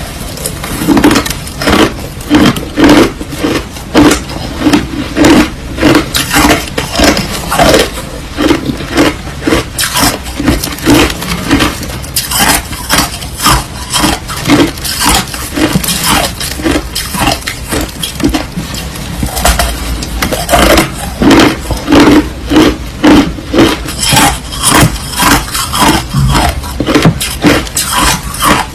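White crushed ice being chewed close to the microphone: a steady run of crunching bites, about two a second, easing off briefly about two-thirds of the way through.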